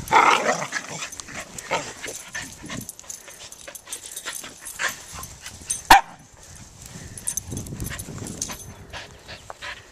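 A Pomeranian puppy and a corgi at play, giving short yips and barks scattered through. There is a loud burst right at the start and a single sharp yip, the loudest sound, about six seconds in.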